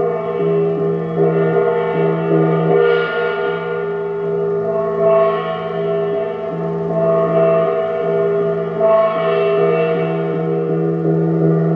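Small handheld bossed gong played with a mallet, ringing on without a break in many overlapping tones. The ring swells brighter about every two seconds and flutters quickly in its middle tones.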